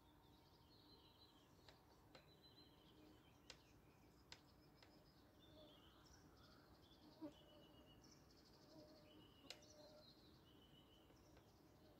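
Faint birdsong: small birds chirping and trilling. A few short, light clicks come through it, the loudest about two-thirds of the way in.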